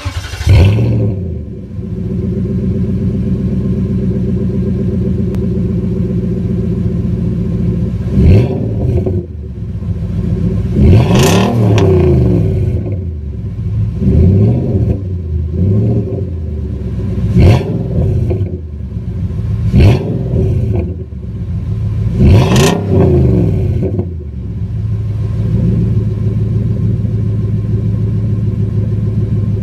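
First-generation Nissan Titan's 5.6-litre V8 through a Black Widow Race Venom exhaust, heard close to the tailpipe: idling steadily, then revved in about seven quick blips whose pitch rises and falls back each time, before settling to idle again near the end.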